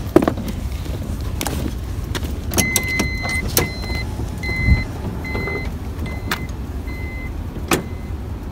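A car's electronic warning beeper sounding a high beep, one longer beep and then short ones about every two-thirds of a second, fading toward the end, over a low rumble. Scattered clicks and a dull thump near the middle come from a car door being handled.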